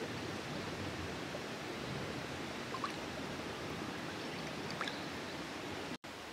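Shallow rice-paddy water stirred by a hand reaching in and lifting out a river snail: a steady gentle sloshing and trickle, with a couple of faint drips or clicks about three and five seconds in.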